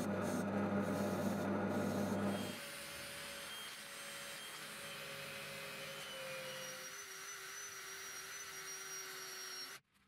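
A drill press runs with a steady motor hum while metal scrapes against the spinning work. About two and a half seconds in, this cuts to a quieter steady whir of a cordless drill spinning bolted steel washers while a hand-held abrasive bar rubs against their edges to round them. The whir stops briefly near the end.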